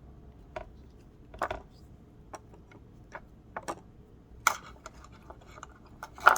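Small folding pocket knives being handled: irregular sharp clicks and taps, the loudest near the end.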